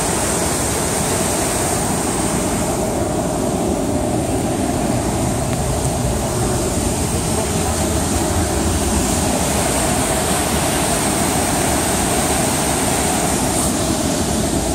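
Large waterfall pouring heavily over rock ledges, a loud, steady, unbroken rush of water heard close up.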